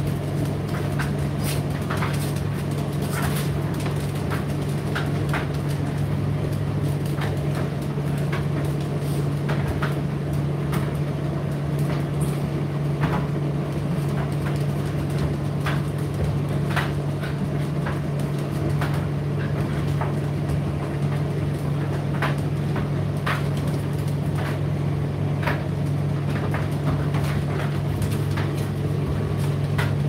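Indesit IDC8T3 condenser tumble dryer running: a steady motor hum with scattered light knocks and clicks at irregular moments throughout.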